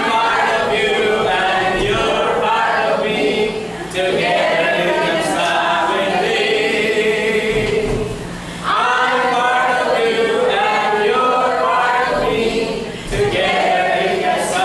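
A group of people singing together unaccompanied, in sung phrases of about four seconds with short breaks between them.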